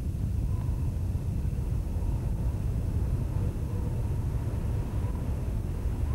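A steady low rumble with a faint, high, wavering tone that comes and goes every second or so.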